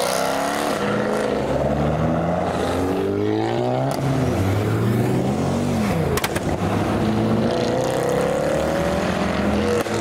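Several modified cars' engines and exhausts running and revving as they drive past, their notes rising and falling and overlapping. There are a couple of brief sharp cracks around four and six seconds in.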